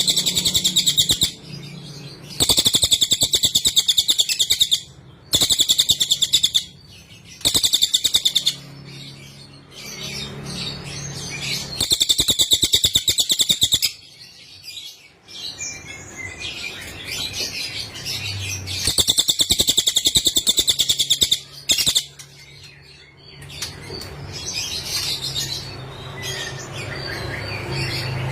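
A cililin songbird singing: loud bursts of rapid, high-pitched trilled notes, each lasting one to three seconds and repeated about six times, with softer, varied chirping between them.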